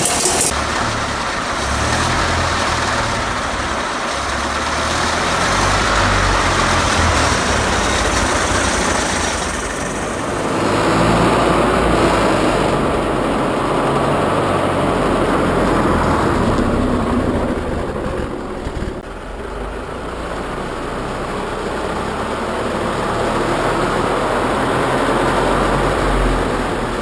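The engine of a 1926 Gotfredson farm truck running on its first start in 30 years, its sound swelling and easing unevenly, loudest about eleven seconds in and dipping briefly about eighteen seconds in.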